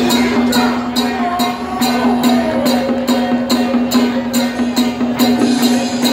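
Music with a steady beat: crisp cymbal-like strokes about twice a second over a held low tone, with a melody above.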